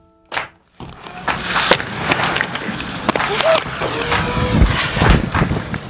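Inline skate wheels rolling on skatepark concrete, starting about a second in, with many sharp clacks and knocks and a few heavy low thumps near the end.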